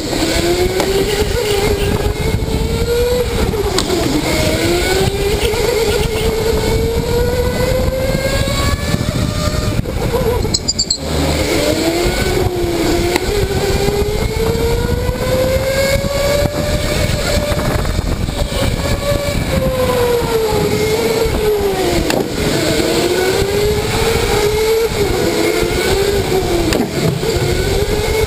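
Electric go-kart motor whining under the driver, its pitch climbing as the kart accelerates and dipping again each time it slows for a corner, over a steady rushing noise.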